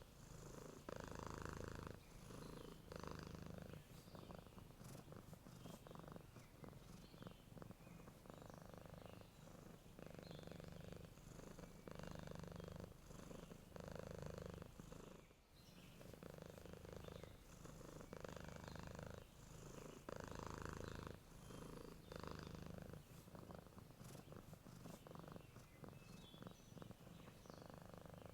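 A sleeping domestic cat purring softly and steadily, the purr swelling and easing with each breath in and out, every second or two.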